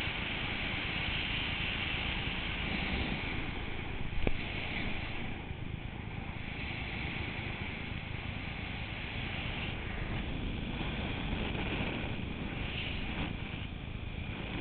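Wind rushing over the microphone of a body-worn camera during a parachute descent under canopy, a steady noisy rush with a single short knock about four seconds in.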